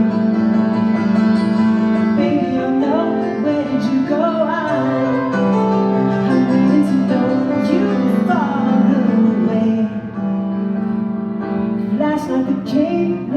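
A rock band playing live: an instrumental passage of sustained chords, with a melody line that glides up and down over them.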